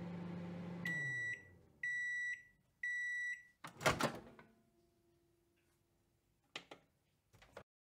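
Microwave oven running with a low hum that winds down as the timer hits zero, then three long beeps, about one a second, signalling the end of the cook time. The door then opens with a loud clunk, and a couple of short clicks follow near the end.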